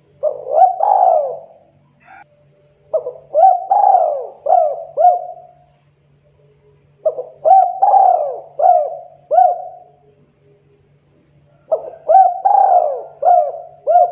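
Spotted dove (tekukur) cooing: four phrases, each a short run of rising-and-falling coos, coming about every three to four seconds.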